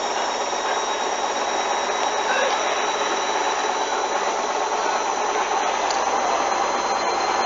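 Hoover front-loading washing machine on its final spin, the drum turning fast with a steady motor whine and rushing noise.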